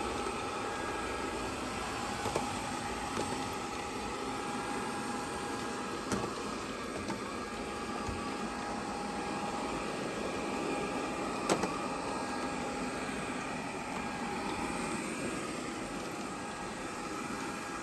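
GleeU GRS1 robot vacuum running: a steady motor and brush whir with a faint constant whine, broken by a few brief sharp clicks.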